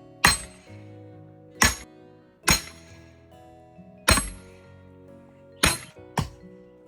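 Axe chopping into a tree stump's root: six sharp, ringing strikes at uneven intervals, over background music.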